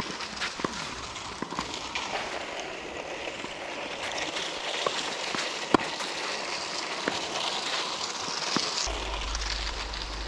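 Outdoor hiss with scattered sharp knocks, the loudest about halfway through; a low rumble starts near the end.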